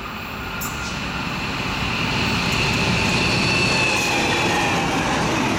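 A pair of diesel locomotives heading a passenger train approaches and runs past. The engine and wheel rumble grows louder over the first three seconds, with a high whine that drops slightly in pitch as they go by.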